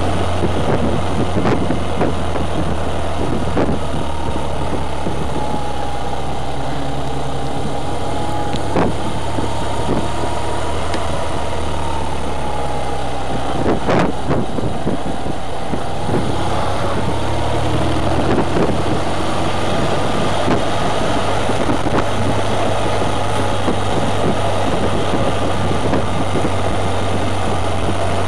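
Motorcycle engine running steadily at road speed with wind rushing past, heard from a camera mounted on the bike behind the windscreen. A few sharp knocks come through, the strongest about 14 seconds in.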